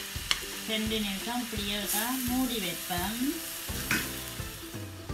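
Shredded cabbage sizzling in a metal wok as it is stirred and tossed with a spatula, with a few sharp clacks of the spatula against the pan. A tune plays underneath.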